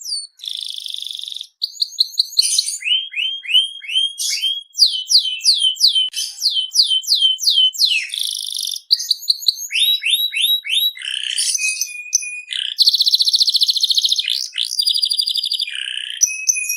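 Canary singing a long, continuous song: runs of quick downward-sliding whistled notes alternate with rapid buzzing trills, the longest trill about two seconds, near the middle to end.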